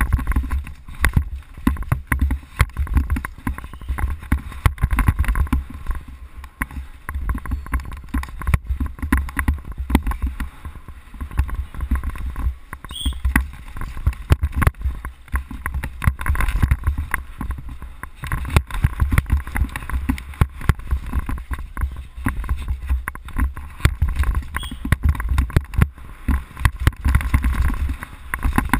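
Wind rushing over an on-board camera's microphone with constant rattling and irregular knocks as a downhill mountain bike runs fast over a rough dirt and rock trail.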